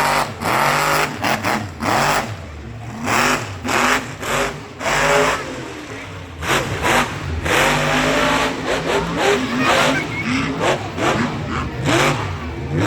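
Monster truck engine revving hard in quick repeated bursts, its pitch sweeping up and falling back with each blip of the throttle.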